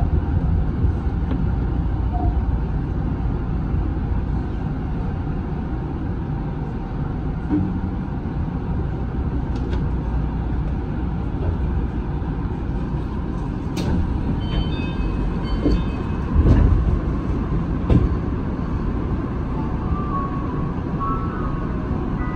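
Tama Toshi Monorail train running along its beam, heard from the front cab: a steady low rumble, with a few knocks and some short high beeps in the second half.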